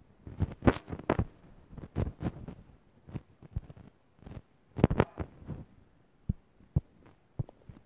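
Irregular soft taps and thumps of fingertips on a phone's touchscreen, picked up by the phone's own microphone, settling into about two taps a second near the end.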